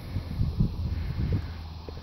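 Wind buffeting the phone's microphone outdoors, an uneven low rumble.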